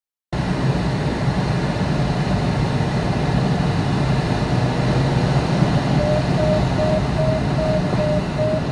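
Steady rush of airflow over a glider's canopy, heard inside the cockpit. About six seconds in, the variometer starts beeping rapidly at a steady pitch that creeps slightly higher, the audio sign that the glider is climbing in a thermal.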